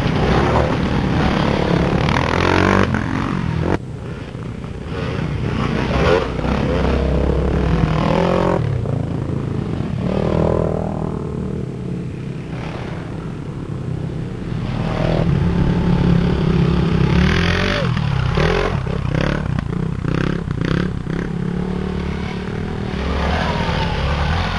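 Dirt bike engines running and revving as several bikes ride past one after another, the engine pitch rising and falling with the throttle.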